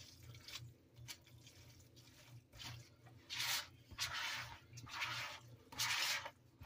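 A spoon stirring and tossing sauced shredded pork in a bowl: soft scraping, squishing strokes, faint at first, then four louder strokes in a steady rhythm from about halfway through.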